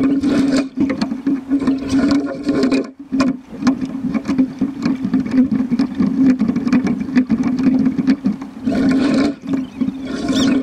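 Water rushing and slapping against the hull of a sculling shell under way, heard from a deck-mounted camera close to the water, with frequent sharp knocks and splashes and a steady low hum underneath.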